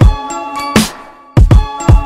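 Background music with deep kick drums, a sharp hit on the off-beat and a held chord; the beat drops out briefly just past halfway.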